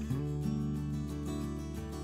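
Instrumental background music with guitar.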